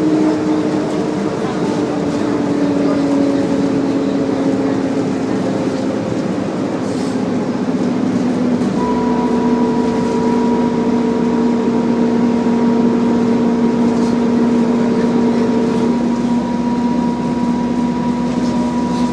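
Optare Solo single-deck bus heard from on board, making a weird grinding sound: a whining drone that slides slowly down in pitch as the bus slows. About nine seconds in it switches abruptly to a steady, higher-pitched drone with a deeper rumble underneath.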